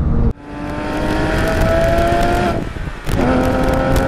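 Porsche 997.1 GT3 RS's naturally aspirated 3.6-litre flat-six accelerating hard, its pitch climbing through the revs. It breaks off about two and a half seconds in for a gear change and then pulls again from lower revs.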